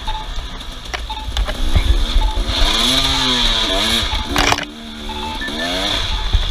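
Off-road vehicle engine revving up and down, its pitch rising and falling several times, with a brief clatter about four and a half seconds in.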